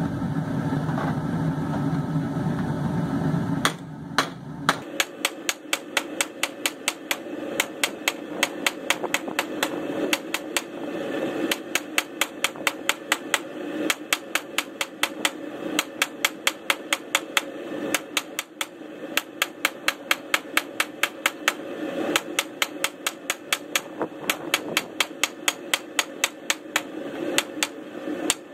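Hand hammer striking hot steel on an anvil in quick, even blows, about three a second, in runs broken by short pauses: the reins of a pair of split tongs being drawn out. A steady low roar runs under the first few seconds and stops about five seconds in.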